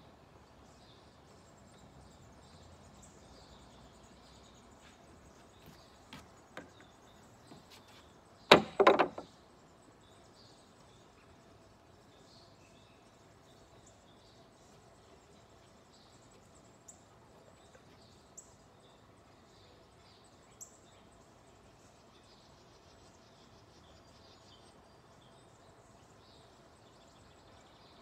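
Quiet outdoor background with faint high chirps. About eight and a half seconds in comes a single sharp click, then a short loud burst of knocks lasting under a second, the loudest sound here.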